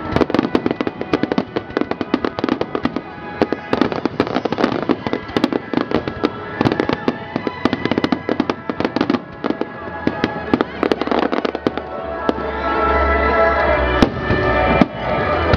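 Rapid-fire barrage of aerial fireworks: many shells bang and crackle in quick succession. From about twelve seconds in, the bursts thin out and music with a deep bass rises under them.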